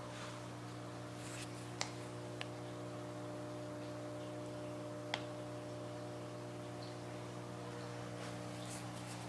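Steady electrical mains hum with several even tones, and a few faint sharp ticks about two and five seconds in.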